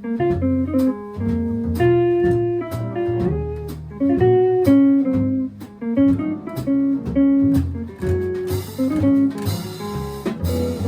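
Jazz quartet playing: electric jazz guitar up front over piano, bass and drums, with short drum strikes throughout and cymbals washing in near the end.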